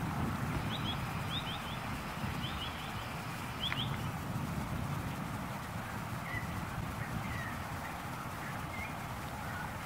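Steady low wind rumble, with brief high bird chirps in the first few seconds and a few softer, lower calls later.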